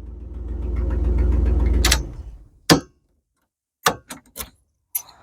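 1980 Dodge B300 motorhome engine running, growing louder, then switched off with the new ignition key about two seconds in and running down. Then a few short sharp clicks from the key and ignition switch.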